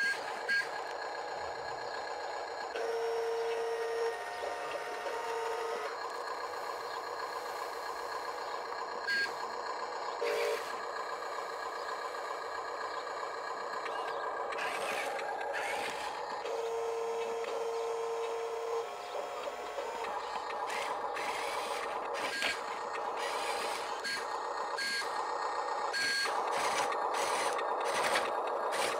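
Radio-controlled model construction machines working: a steady motor and gear whine with scattered clicks and knocks. A few held beep tones sound, the longest about two seconds, from about 16 to 19 seconds in.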